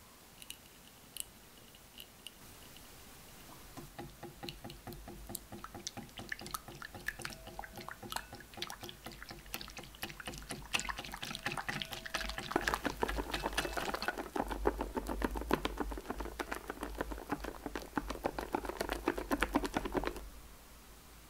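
Whipping cream being beaten by hand with a wire balloon whisk in a glass bowl: a fast run of clicks from the wires against the glass along with the slosh of the cream. It begins about four seconds in, grows louder about halfway through, and stops suddenly near the end, with the cream whipped to stiff peaks.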